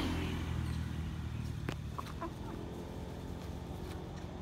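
Two short animal calls a little after two seconds in, over the low rumble of a passing vehicle that fades away, with a single sharp click just before the calls.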